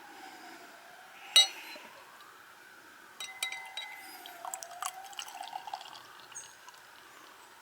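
Glass clinking and liquid being poured, with one sharp clink about a second and a half in and a run of small clinks and splashes in the middle. A faint siren rises and falls behind it.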